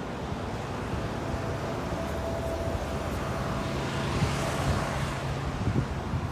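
Outdoor street-market background ambience: a steady low traffic rumble, with a hiss that swells and fades about four and a half seconds in.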